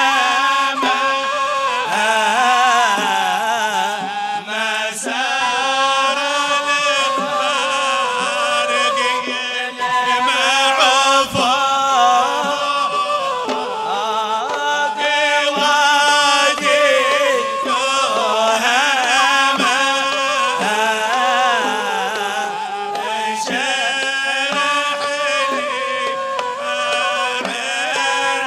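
Male munshids chanting a Hadrami religious qasida (inshad) together into microphones, in a sustained, wavering melody.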